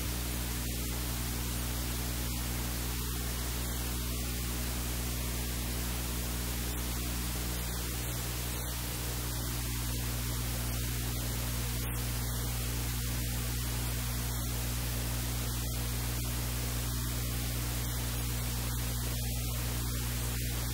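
Steady hiss with a low electrical hum underneath: the recording's background noise, with no other sound standing out.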